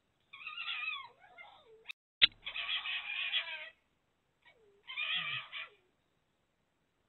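Red fox calling: three long calls, each ending in a falling pitch, with a short note between the second and third. A single sharp click about two seconds in is the loudest sound.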